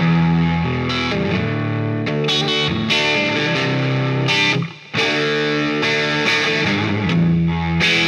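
2017 Gibson Firebird T electric guitar played through an amplifier and 2x12 speaker cabinet: held chords and notes changing every second or so, with a short break a little past halfway before the playing picks up again.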